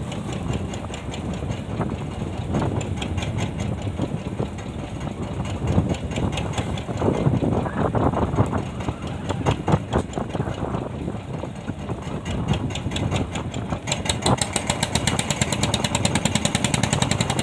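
Fishing boat's inboard engine running with a rapid, even knocking beat. It gets louder and sharper about three-quarters of the way through.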